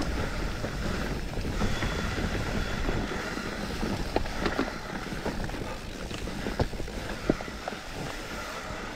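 Mountain bike descending a dirt forest trail: a steady rush of wind on the microphone and tyres rolling over dirt and leaves, with scattered sharp knocks and rattles from the bike over bumps.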